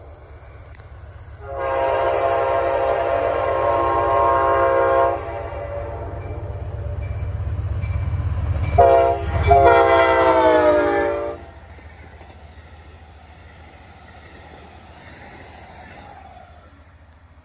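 Amtrak P42DC diesel locomotive's air horn sounding for a grade crossing: one long blast, then a short blast and a long one whose pitch falls as the locomotive passes, over the rising rumble of the approaching train. After the horn stops, the passenger cars roll by more quietly.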